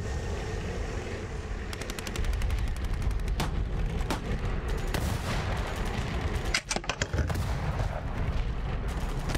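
Restored 1956 Nylint Electronic Cannon Truck's mechanism running with a low hum and a fast run of sharp clicks, with a few louder cracks about 3.5, 4 and 7 seconds in.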